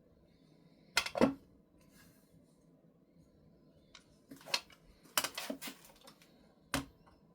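Metal tools being handled, with a few separate clinks and knocks: a pair about a second in, a cluster about four to six seconds in, and a last sharp one near the end. The grinding wheel is not heard.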